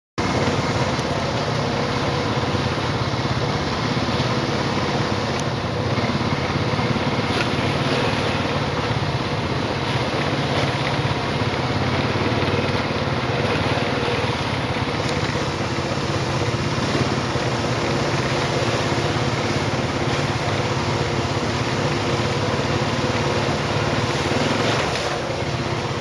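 ATV (quad bike) engine running steadily under way over a rough dirt trail, with a broad rushing noise over it.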